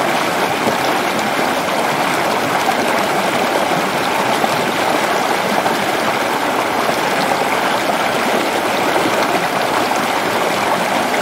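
Mountain stream rushing steadily over rocks in small cascades.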